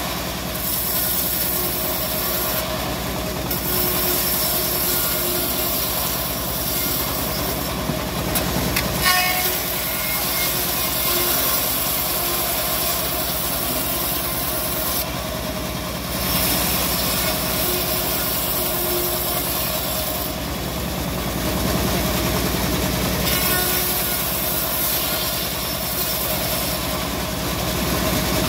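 Homemade engine-driven bandsaw ripping teak planks: a steady engine hum, with the high hiss of the blade cutting swelling over several passes a few seconds long, each broken by a brief dip as the next plank is fed in.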